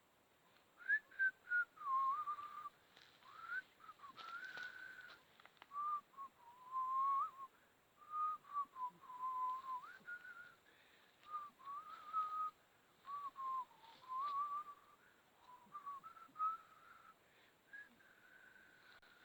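A person whistling a tune, a single clear pitch moving from note to note in short phrases with brief gaps between them.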